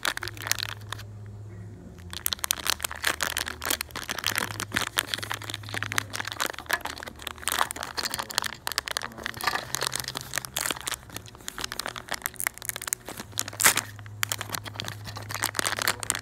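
Thin clear plastic bag crinkling and crackling in the hands as a small die-cast toy car is worked out of it, with a brief pause about a second in and one sharp crack near the end.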